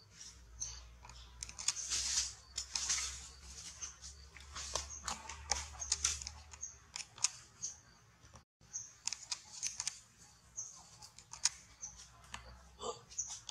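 Dry leaf litter crackling and rustling with scattered small clicks, as monkeys move over the ground and stones, with short high chirps throughout and a brief squeaky call near the end.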